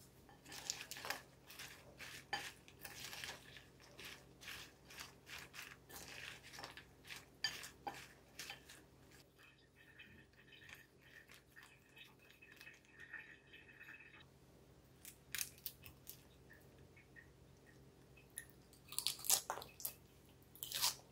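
Crisp romaine lettuce and croutons crackling and crunching as a salad is handled in a glass bowl: many quick crisp clicks in the first half, a few scattered ones in the middle, and a louder flurry near the end.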